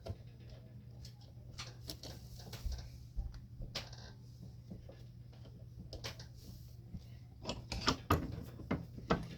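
Scattered light clicks and knocks of small metal parts being handled while a sealed ball bearing is set into a dryer drum roller for pressing in a bench vise, with a burst of sharper knocks near the end. A steady low hum runs underneath.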